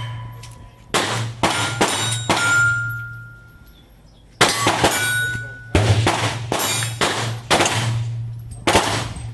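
A gun fired in a series of about a dozen shots, some in quick succession. A couple of the shots are followed by a short ringing tone.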